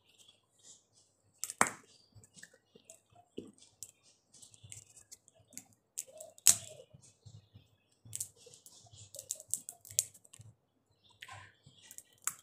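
Close-up mouth and finger sounds of eating boiled jackfruit seeds: a string of small clicks, cracks and lip smacks as the seed skins are bitten and peeled off, with two sharper cracks about a second and a half and six and a half seconds in.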